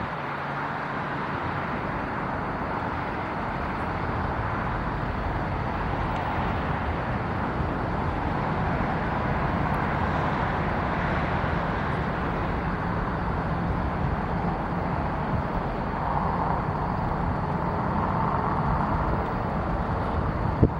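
Steady outdoor rumble of passing vehicle traffic, swelling a little in the middle and again near the end.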